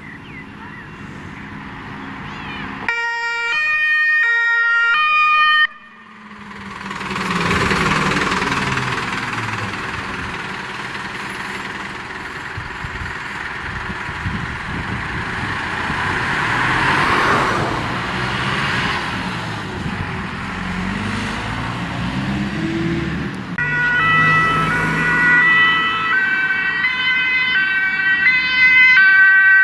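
German fire-engine two-tone siren (Martinshorn) alternating between two pitches for a few seconds, then cutting off suddenly. A truck's diesel engine and road noise follow as the fire engines drive past. Near the end another two-tone siren starts and grows louder as the next fire engine approaches.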